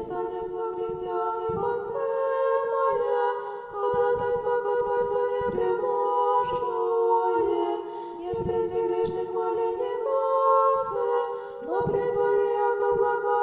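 Orthodox church chant sung a cappella by a choir: held chords that change every second or two, with short breaks between phrases about four, eight and twelve seconds in. It starts abruptly, out of silence.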